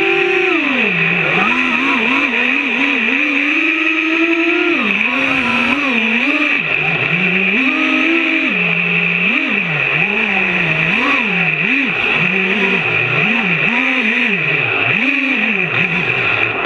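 FPV racing quadcopter's 2206 2400KV brushless motors whining, their pitch swinging up and down rapidly and repeatedly as the throttle is worked through turns and dives, heard from the camera mounted on the quad. A steady high-pitched tone runs underneath throughout.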